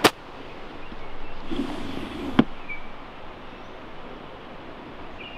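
A 60-degree wedge striking a golf ball on a chip shot: one sharp click at the start. A second short click follows about two and a half seconds in, over low outdoor background.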